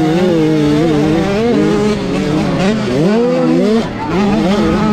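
A 65cc two-stroke motocross bike engine heard on board at race pace, its pitch rising and falling as the throttle is worked. About three seconds in it climbs sharply, then briefly drops away and pulls again.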